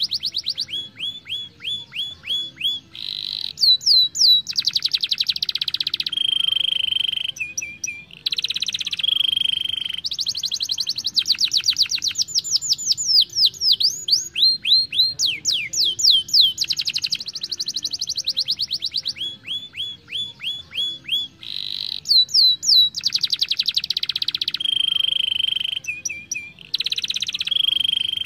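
Young domestic canary singing a long, nearly unbroken song of rapid trills and rolls, with runs of quick falling notes between buzzy rolled phrases.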